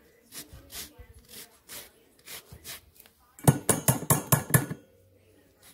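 Microplane zester rasping over lemon rind in quick strokes, about three a second. About three and a half seconds in comes a burst of about eight rapid, ringing metal clanks: the grater tapped against the rim of a stainless steel bowl to knock the zest off.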